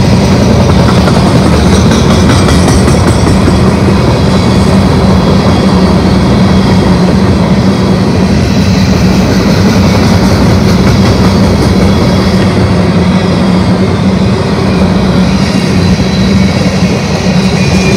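Coal cars of a freight train rolling past close by: a loud, steady rumble of steel wheels on the rails that does not let up.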